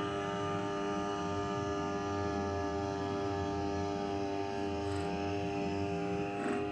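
Background music holding a steady, unchanging drone chord.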